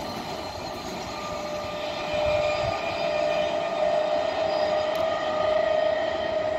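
Electric multiple unit (EMU) local train pulling away along the track, a steady whine over a rolling rumble that grows a little louder about two seconds in.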